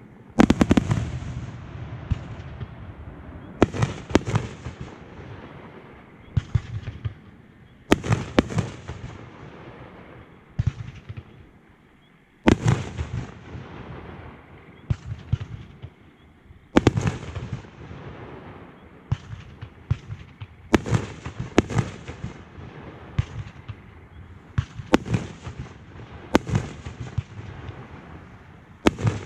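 Fireworks show: aerial shells bursting one after another in irregular succession, sharp booms every second or few, each trailing off in crackle and rumbling echo.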